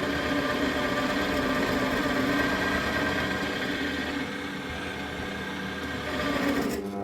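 Parkside bench pillar drill's motor running with a steady hum.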